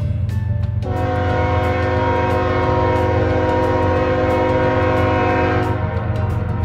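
Diesel freight locomotive's air horn sounding one long blast of several notes together, starting about a second in and lasting about five seconds, over a steady low rumble from the approaching train.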